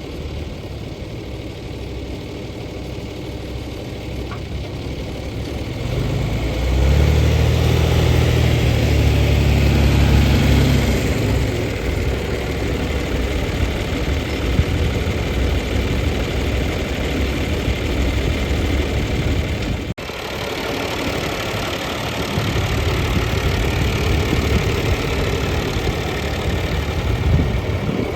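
John Deere 2840 tractor's six-cylinder diesel engine running at idle. It grows markedly louder for a few seconds about a quarter of the way in, then settles back to a steady run, with a brief break about two-thirds of the way through.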